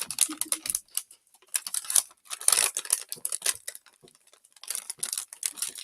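Bursts of crinkling and clicking from a plastic fruit-snack packet being handled while gummies that are stuck together are pulled out.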